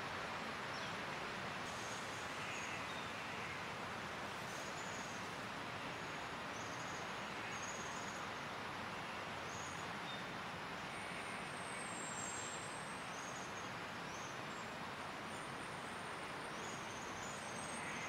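Steady hum of distant city traffic, with faint short high chirps of small birds scattered through it.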